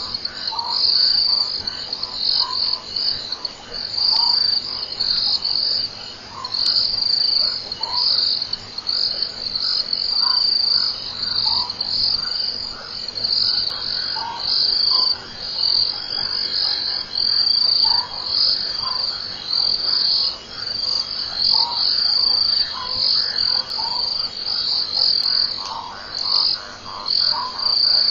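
Night chorus of crickets trilling steadily in a high band, with short frog calls every second or two that come more often near the end.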